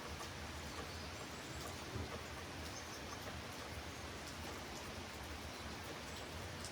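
Steady rain falling, an even hiss of many drops, with one brief louder tap about two seconds in.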